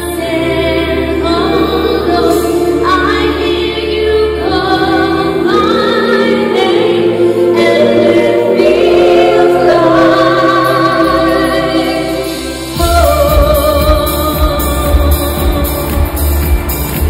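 Female lead singer and a small mixed backing choir singing a slow, gospel-style vocal passage live, with little instrumental backing. About thirteen seconds in, the band comes in with drums and bass keeping a steady beat.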